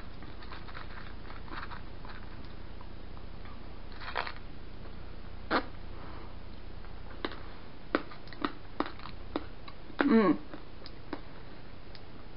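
Mouth sounds of a person eating soft candy: scattered small clicks and lip smacks, with a brief hum of voice about ten seconds in.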